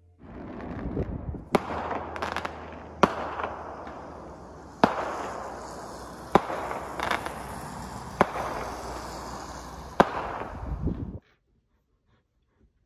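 Fireworks going off: six sharp bangs, about one every one and a half to two seconds, over a continuous crackle and rumble. The sound cuts off suddenly near the end.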